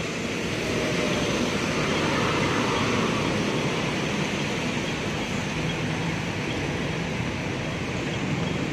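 Steady city traffic on a rain-wet street, with double-decker buses and taxis passing and the hiss of tyres on wet road.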